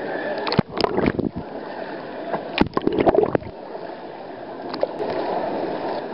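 Water rushing and churning down a water-park slide, heard close at water level, with two bursts of loud splashing about a second and three seconds in.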